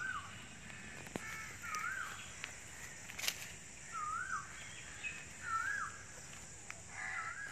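A bird repeating a short, wavering whistled note about five times, roughly every second and a half, with a few sharp clicks in between.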